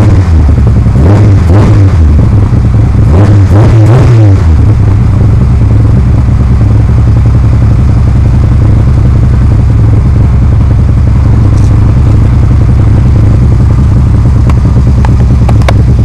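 Lada 2108's four-cylinder engine through a tuned exhaust, very loud: revved in two quick blips in the first few seconds, then idling steadily. A few sharp clicks near the end.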